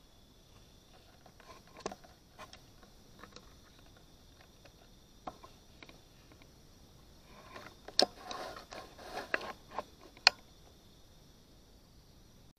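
Steady high-pitched insect chorus of a night forest. Scattered sharp clicks and brief rustling come through it, gathering into a busier run of clicks and rustle about eight to ten seconds in.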